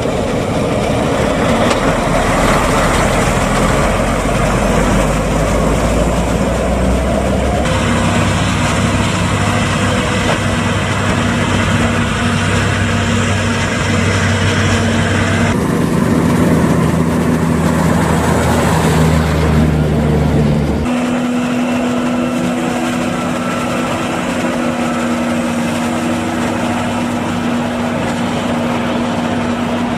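Heavy diesel engines of corn-harvesting machinery running steadily: forage harvester, harvest bunker and agrotrucks. The engine tone changes abruptly three times as the sound shifts from one machine to another.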